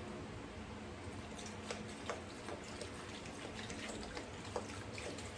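Sprite soda being poured into the marinade, a faint liquid splashing and dripping with scattered light clicks.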